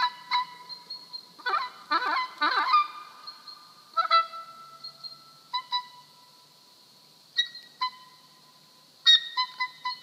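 Oboe improvising in short separate notes, with a run of rough, wavering, pitch-bending honks about one and a half to three seconds in. After that, single notes come sparsely with gaps between them, and a cluster of quick notes near the end.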